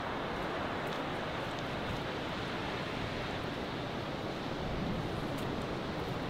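Steady outdoor ambience: an even rushing noise with no breaks or distinct events.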